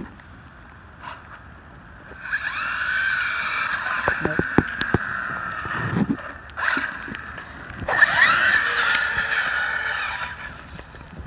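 Arrma Talion 1/8-scale RC truggy's brushless motor and drivetrain whining under throttle on a 4S battery, in two runs about 2 and 8 seconds in, the pitch rising as it accelerates each time. A sharp knock right at the start and a few more in the middle.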